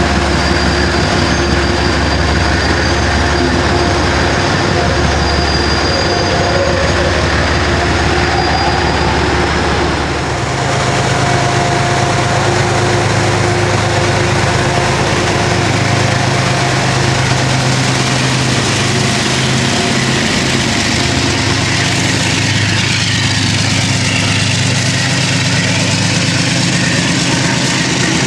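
GE P32AC-DM diesel locomotive's engine running hard as the train pulls out, a loud steady drone that steps up to a higher, throatier note about ten seconds in as it throttles up.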